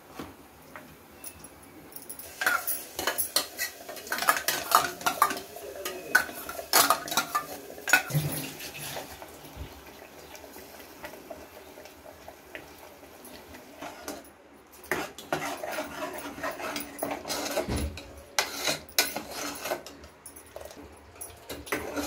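A steel ladle clinking and scraping against a metal cooking pot while masala is stirred. It comes in two spells of clatter with a quieter stretch between.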